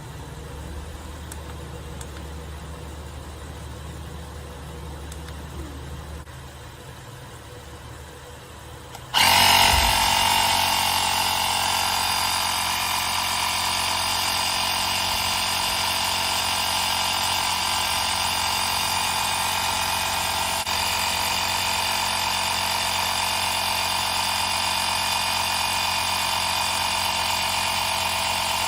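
A low steady hum, then about nine seconds in the small electric motor of a plug-in 4-in-1 car vacuum and tyre inflator switches on abruptly and runs steadily with a high whine.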